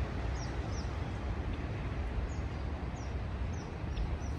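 Wind rumbling on the microphone, with a bird chirping in the background: short, high notes repeated every half second or so, some gaps between them.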